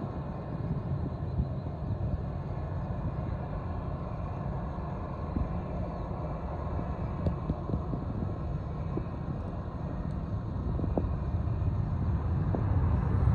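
Jet engines of a wide-body airliner rumbling steadily as it lands and rolls out along the runway, growing louder toward the end.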